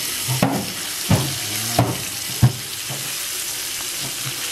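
Steak sizzling steadily in a frying pan, with four sharp clicks of metal tongs against the pan as the meat is moved.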